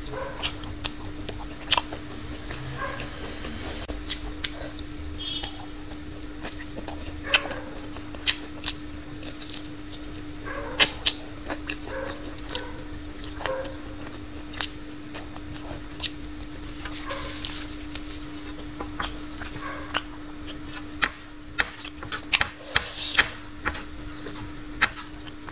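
Close-miked eating sounds: chewing, lip smacks and wet mouth clicks as meat is picked off a fried chicken leg bone and eaten from the fingers. A steady low hum runs underneath, and a cluster of sharper clicks comes near the end.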